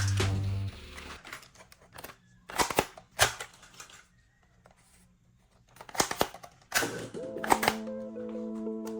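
Toy guns firing and clicking: sharp snaps in two short clusters, a few around the second and third second and a few more about six to seven and a half seconds in. Background music fades out near the start and comes back before the end.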